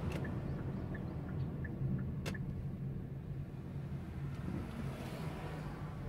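Car driving along a road, heard from inside the cabin: a steady low rumble of engine and tyre noise. There is one sharp click about two seconds in.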